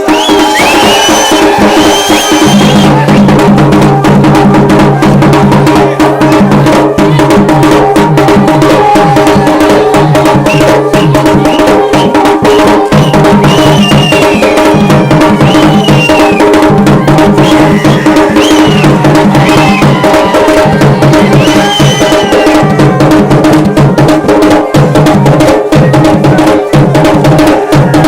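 Garhwali dhol and damau drums playing a fast, dense rhythm of rapid strokes, over steady held tones and a low part that comes and goes in short blocks.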